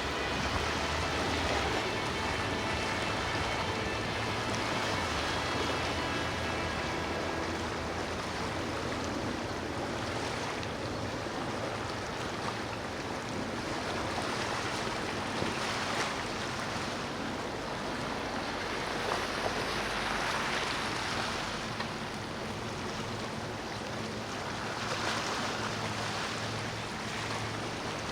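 Rough water and boat wakes washing, with a boat engine's drone fading out over the first several seconds; the water noise swells and eases in surges.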